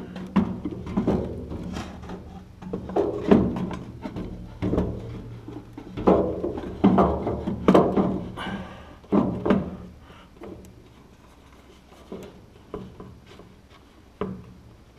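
Irregular knocks, clunks and scrapes of an overhead speaker and gauge panel being handled and pressed into place against the roof of a Bobcat skid-steer cab, busier in the first ten seconds and sparser and fainter later.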